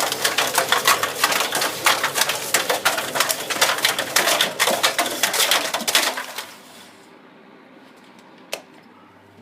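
A plastic lid, a plastic bottle and scraps of paper clattering and rattling as they tumble inside a tumble dryer drum, a fast irregular run of clicks that stops about six seconds in. A faint steady hum is left, with one more click near the end.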